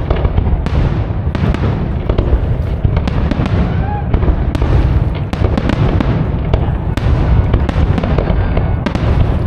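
Fireworks display: aerial shells bursting in a rapid, continuous series of bangs and crackles over a steady low rumble.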